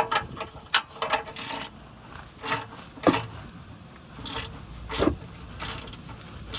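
Metal wrench clicking, knocking and scraping on an engine oil drain plug in irregular strokes as a still-tight plug is worked loose.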